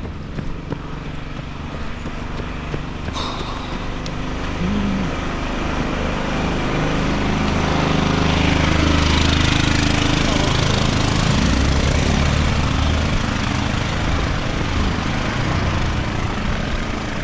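A motor vehicle's engine running close by, with a steady drone that grows louder over the first half and then holds.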